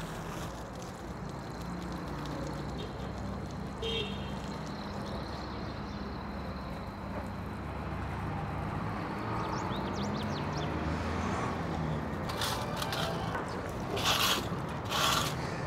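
Street ambience with a steady low traffic rumble, a short high chirp about four seconds in, and a few sharp knocks or crackles near the end.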